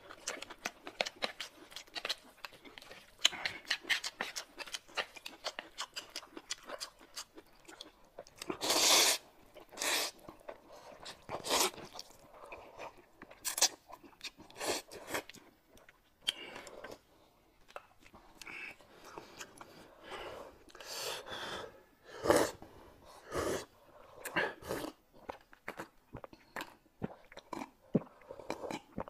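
Close-miked eating sounds from two people chewing and slurping, noodles and spoonfuls of a thin soup taken from a glass cup, in irregular bursts. The loudest slurps come about a third of the way in.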